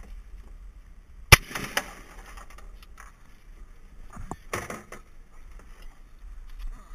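Shotgun being handled: one sharp, loud crack about a second and a half in, followed by a brief rattle, then another short burst of rattling and clatter around four to five seconds in.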